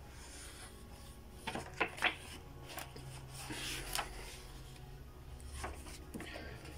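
Pages of a thick weekly manga magazine being turned and smoothed by hand. Its thin, cheap newsprint gives a string of short, soft rustles, the clearest about two seconds in.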